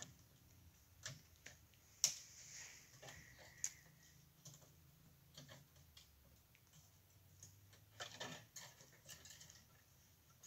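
Faint, scattered clicks and light knocks at irregular intervals, the sharpest about two seconds in and a small cluster near eight seconds: handling noise as the wooden trap is worked on up in the tree.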